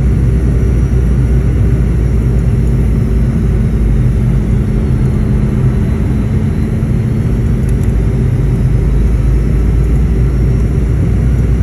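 Airliner cabin noise on the descent to landing: a steady low rumble of engines and airflow, with a steady hum in it that fades out about eight seconds in.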